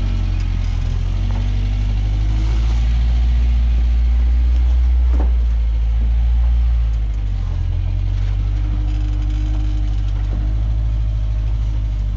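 A 4x4's engine running low and slow while crawling over rocks, swelling in level from about two seconds in and easing back about seven seconds in. A single sharp knock sounds about five seconds in.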